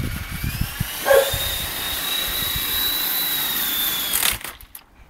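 Walkera 22E RC helicopter's electric motor and rotor whining, rising in pitch about half a second in as it spools up and lifts off, then holding steady, with a sharp knock about a second in. Near the end the whine cuts off abruptly with a few clicks as the helicopter crashes and its rotor blades strike the grass.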